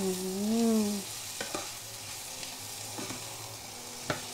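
Vegetables sizzling in a frying pan as they are stir-fried with a spatula, which knocks against the pan three times. A short vocal sound from the cook comes at the start.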